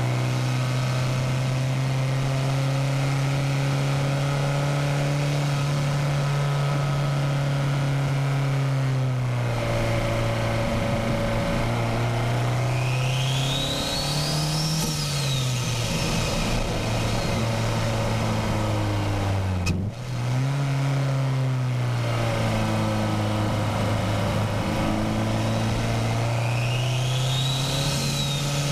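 Turbocharged Nissan SR20DET four-cylinder in a Miata running hard through the bends. Its pitch holds steady, then dips and climbs again as the throttle and gears change. A high whistle rises and falls twice, and a short sharp click comes about two-thirds of the way through as the pitch drops.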